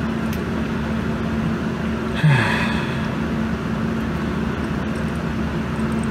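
Steady mechanical hum with a constant low tone, broken about two seconds in by one short falling sigh-like sound.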